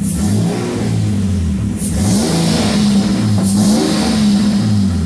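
Nissan 300ZX Turbo's VG30ET V6 being blipped several times from idle, its pitch climbing and falling back with each rev, with a hissy rush at the top of some of the revs.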